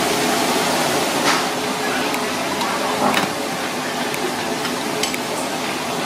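Steady kitchen background hiss with a faint hum, and a few clinks and scrapes of a ceramic spoon against a ceramic bowl as a thick sauce is spooned in, the clearest about one and three seconds in.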